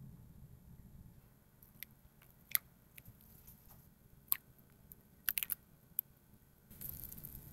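Scattered sharp clicks and taps of a small cup and utensils against a glass bowl as lemon juice is added to hot soy milk, a few of them in quick pairs. Near the end, a soft, steady scraping swish begins as a silicone spatula stirs the curdling soy milk.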